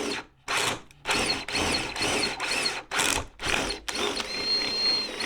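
Power drill run in a string of short bursts, its motor whine rising and falling as the trigger is squeezed and let go.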